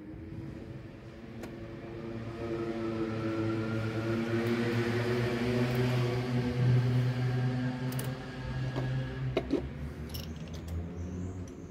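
A motor vehicle's engine passing by, a steady hum that swells to a peak about two-thirds of the way through and then fades. Near the end come a few light metallic clicks from the typewriter's ribbon spools being handled.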